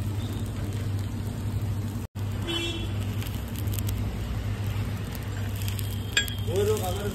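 Steady low hum with a light hiss at a gas stove under a cast-iron griddle, and a single sharp metal click about six seconds in as the steel spatula touches the griddle.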